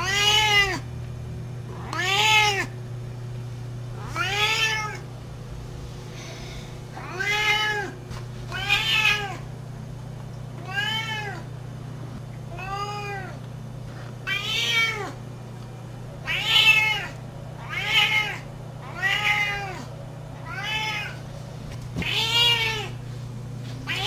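Siamese cat meowing over and over, about thirteen meows, each rising and then falling in pitch, with short pauses between them, over a steady low hum.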